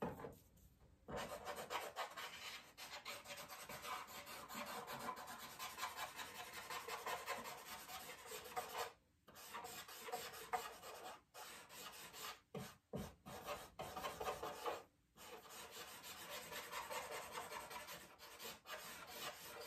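Paper blending stump rubbing charcoal into drawing paper in rapid short strokes, a faint continuous scratchy rubbing that starts about a second in and breaks off for a few brief pauses.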